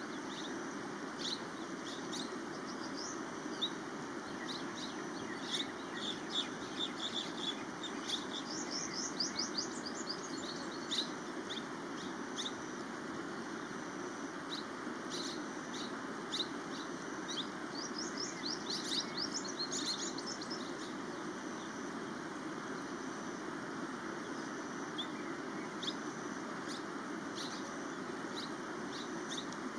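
Many small birds chirping over the steady rush of a flowing river, the chirping busiest in two spells, about a third of the way in and again about two-thirds through.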